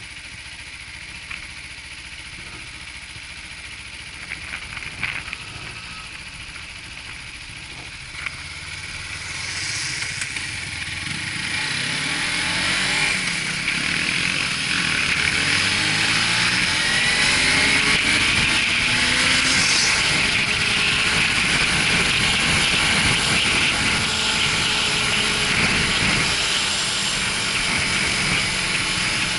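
Motorcycle engine idling with a few light knocks, then pulling away about a third of the way in and accelerating, its pitch rising in several sweeps as it goes up through the gears. Wind rushes over the microphone as speed builds and stays loud.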